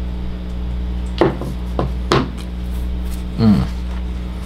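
A few sharp taps and knocks, like fingers on a laptop's keys and touchpad, over a steady low hum; a short falling tone sounds about three and a half seconds in.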